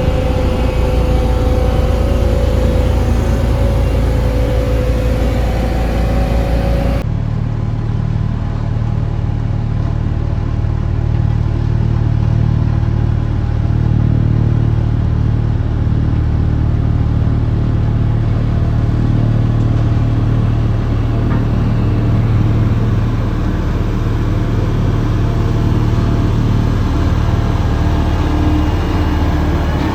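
Road roller's diesel engine running steadily under work. About seven seconds in the sound changes abruptly to a deeper, steadier hum.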